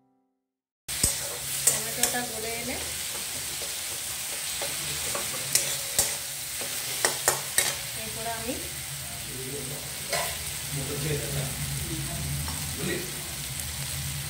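Browned onion and spices frying in oil in an aluminium kadai, a steady sizzle, with a metal spatula scraping and knocking against the pan; the sound starts about a second in and the knocks come in clusters, the last near ten seconds in.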